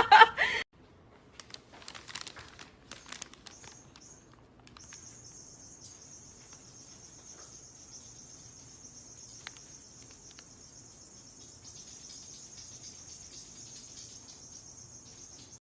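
Insects trilling steadily in a high, continuous chorus, starting about four and a half seconds in, preceded by a few faint clicks and rustles.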